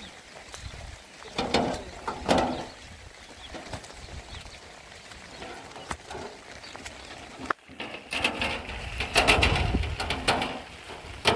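Empty metal wheelbarrow pushed over stony dirt ground, rattling and crunching along with footsteps, louder in the last few seconds. Two short pitched sounds come about a second and a half and two seconds in.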